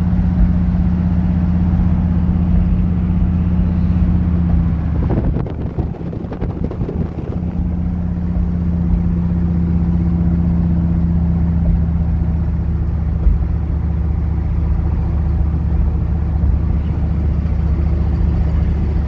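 1971 Chevy C10's 350 small-block V8 running steadily while driving. About five seconds in, the engine sound breaks up and dips for a couple of seconds, then settles back to a steady pitch.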